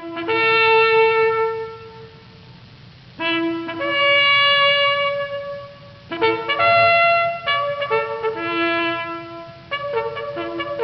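Brass music led by a trumpet: long held notes in phrases, turning to quicker, shorter notes near the end.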